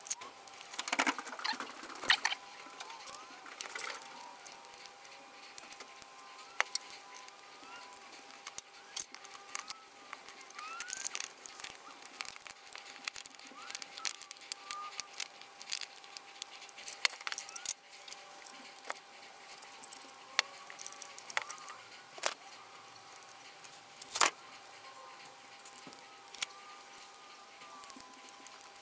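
Small clicks, clinks and knocks of hand-work: metal washers, a screwdriver and a plastic lamp holder being handled and screwed together, with scattered faint short squeaks and a faint steady tone underneath.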